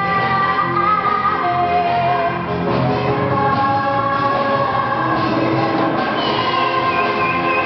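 Musical-theatre number performed live: the cast singing together over loud accompaniment, with long held notes.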